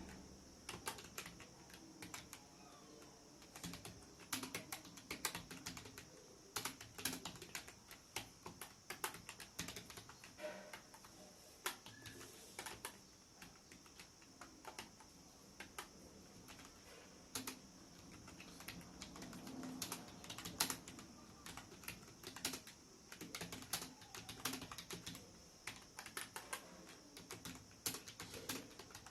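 Computer keyboard typed on steadily, a fast irregular patter of keystrokes with a steady high hiss underneath.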